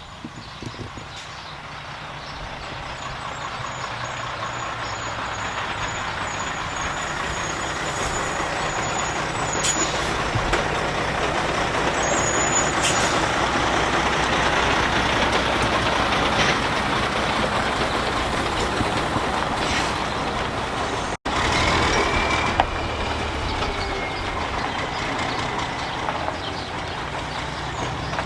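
A motor vehicle driving, with steady engine and road noise that swells over the first several seconds and holds; it breaks off abruptly about two-thirds of the way through, then carries on.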